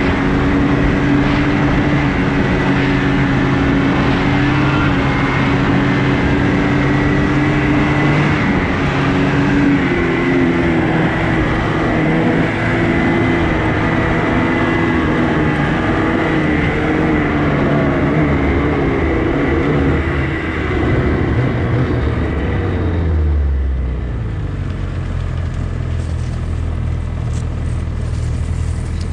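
Snowmobile engine running steadily at trail-riding speed, then easing off late on and settling to a low idle as the sled comes to a stop.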